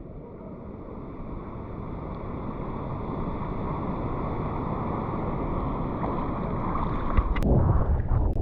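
Water and wind rushing over a GoPro's microphone while surfing, getting steadily louder. Near the end there is a sharp knock and then a loud splash of water.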